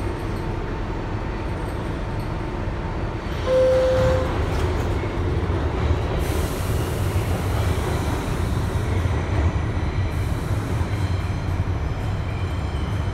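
Rumble of an R62A subway car running on the rails, heard from inside the car, with wheel and rail noise. A short, loud single tone sounds about three and a half seconds in, and the high rail hiss grows from about six seconds on.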